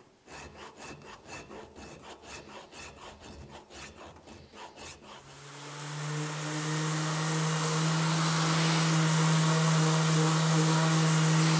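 A half-round file scraping through a drilled hole in maple to elongate it, in quick strokes about three a second. About five seconds in, a random orbit sander starts and runs steadily and much louder, with a constant hum.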